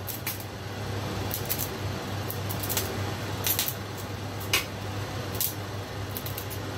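Cooking oil heating in an empty wok, giving a few short crackles and pops over a steady low hum and hiss.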